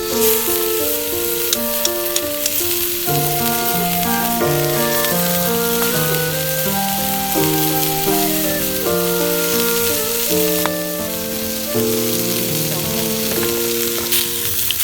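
Food sizzling in a hot pan, a steady fine hiss with a few small pops, starting suddenly at the beginning, over background music with a slow melody.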